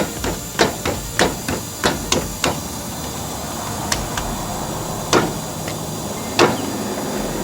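Hammer blows: about nine sharp knocks in quick, uneven succession, then three more spaced farther apart near the end.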